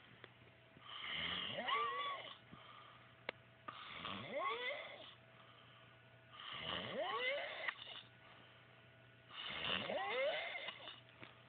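Pig-like snoring: four snores about three seconds apart, each a squealing sound that rises sharply in pitch.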